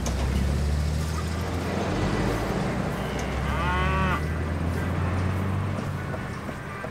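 A low, steady rumble under a short, wavering farm-animal call about three and a half seconds in.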